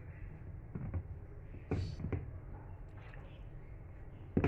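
A hand mixing flour and lukewarm water in a steel bowl for dough: soft rubbing and squishing, with a few short knocks, the sharpest near the middle and another near the end.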